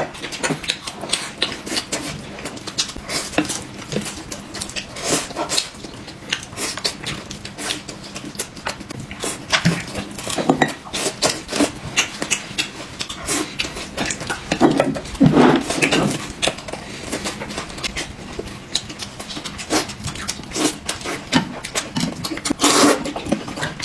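People eating with loud, irregular chewing and lip-smacking, and utensils clicking against dishes, with a few brief murmurs of enjoyment.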